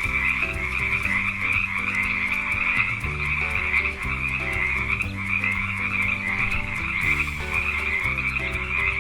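Frogs croaking in a continuous, dense chorus that stops shortly before the end, over soft background music.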